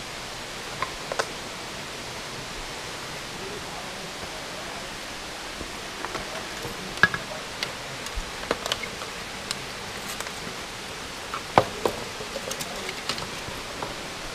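Steady rushing of creek water, with scattered irregular clicks and taps on top, a few sharper ones in the second half.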